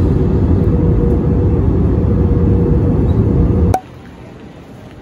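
Airliner cabin noise: the steady sound of the jet engines and airflow with a thin steady hum, heard from a window seat on approach. It cuts off suddenly about three and a half seconds in, leaving quieter airport terminal ambience.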